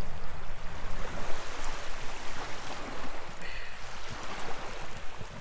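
Small waves lapping at a sandy lakeshore, a steady rushing noise with a low rumble, and a brief high-pitched sound about three and a half seconds in.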